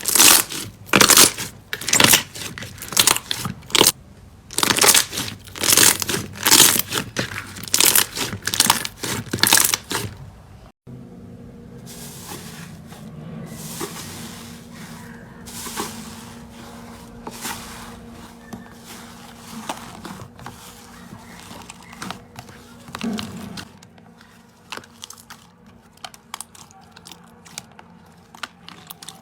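Slime being squeezed and pressed, making a quick run of loud crunching, crackling squishes for about ten seconds. After a sudden cut come softer, scattered crackles over a faint hum.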